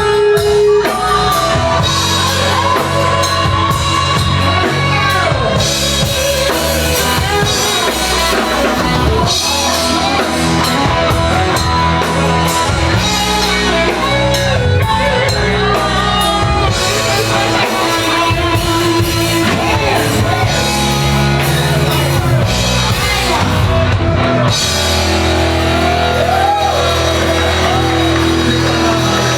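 Live rock band playing a song: drum kit, guitar and a singer.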